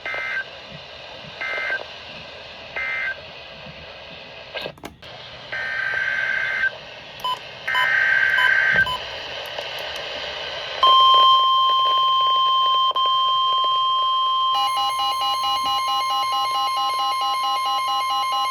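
Emergency Alert System (SAME) digital data bursts on NOAA Weather Radio, the buzzy warbling squeals that bracket a warning: three short bursts, then two longer ones. About 11 s in, the steady weather radio warning alarm tone starts, and about 15 s in a fast-pulsing electronic beeping joins it, which signals an incoming alert.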